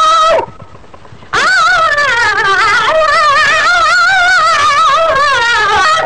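A solo voice singing a Sindhi devotional molood in long, held, ornamented phrases with wavering melismatic turns. The line breaks off about half a second in and resumes about a second later with a new sustained phrase.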